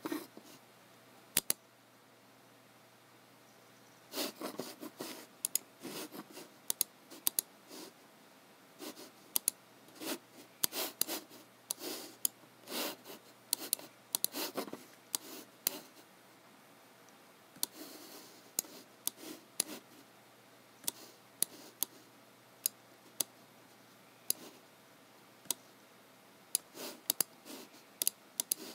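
Irregular clicks of computer work: mouse buttons and keys pressed one at a time or in quick pairs, with short pauses between. About 18 seconds in there is a brief soft rubbing sound.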